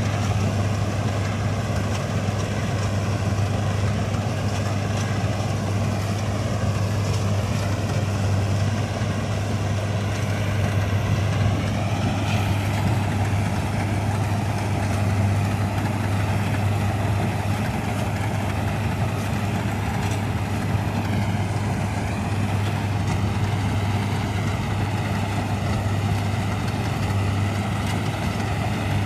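Vintage Ködel & Böhm Köla Combi combine harvester running steadily at work, a constant low engine hum under dense mechanical noise.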